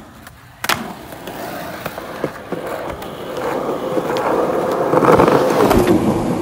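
Skateboard wheels rolling on concrete, growing louder as the board approaches, with a sharp clack about a second in.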